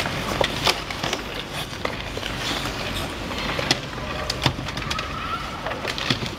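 Ice hockey sticks clacking against the puck and the ice, with skate blades scraping. Sharp knocks come irregularly throughout.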